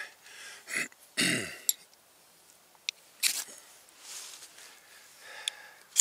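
Lighting a Trangia spirit burner by hand: a few sharp clicks and short scraping strikes, the last one just as a flame flares up near the end, with a man's short grunt about a second in.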